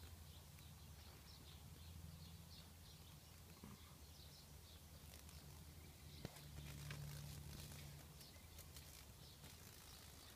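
Near silence: a faint low hum with small birds chirping in the distance, in short repeated high notes, and a single faint click about six seconds in.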